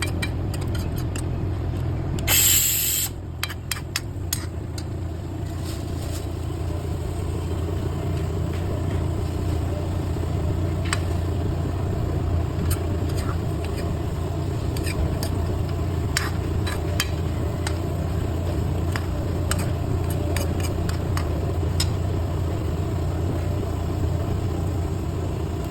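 Bee brood frying in a pan: scattered clicks and pops over a steady low rumble, with a short, loud hissing burst a little over two seconds in.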